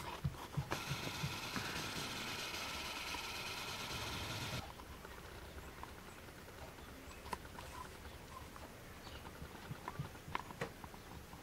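Footsteps crunching in deep snow for the first moment. Then a steady hiss that cuts off suddenly after about four seconds, followed by quiet outdoor ambience with a few small clicks.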